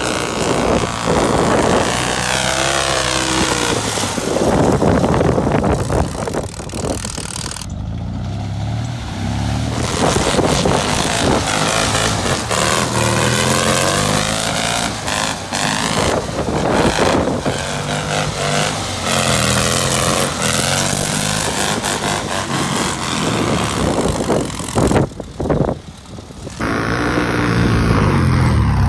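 Rail buggy's engine revving up and down repeatedly as it is driven hard, with broad road and wind noise. The sound drops out briefly twice.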